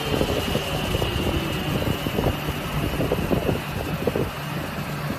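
Round wooden stick (dowel) making machine running: a steady motor hum with a faint whine slowly falling in pitch, and irregular wooden knocks and clatter as the sticks feed through the rollers.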